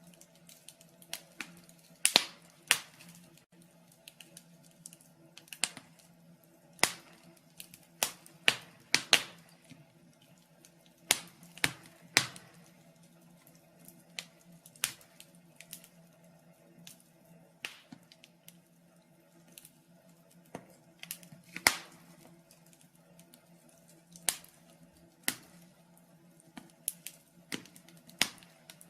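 Wood fire crackling in a fireplace: irregular sharp pops and snaps, a few every couple of seconds, over a faint steady low hum.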